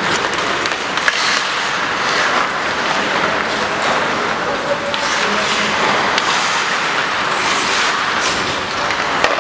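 Hockey skates scraping and carving on rink ice, with now and then a sharp clack of a stick or puck, in a reverberant ice hall.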